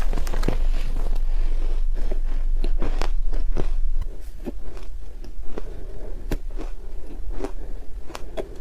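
Close-up biting and chewing of crunchy ice, a rapid run of sharp crunches and cracks. The crunching is louder for the first few seconds, then lighter.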